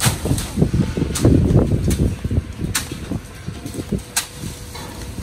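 Sugarcane stalks being thrown onto a load in a truck's cargo bed: a run of irregular knocks and clatter, heaviest in the first two and a half seconds, with sharp cracks about once a second.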